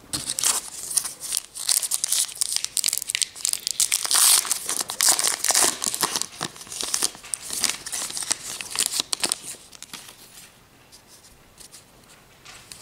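A trading-card pack wrapper being torn open and crinkled in the hands: a run of dense crackling and tearing for about ten seconds, loudest near the middle, dying down to faint handling near the end.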